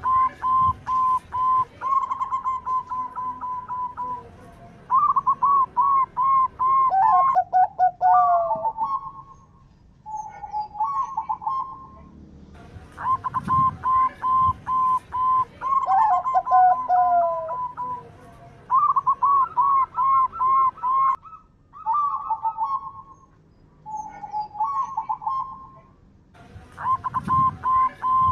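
Zebra doves (local perkutut) cooing: repeated phrases of quick rhythmic coos, each ending in a longer drawn-out note, with short pauses between phrases and at times two birds calling over each other.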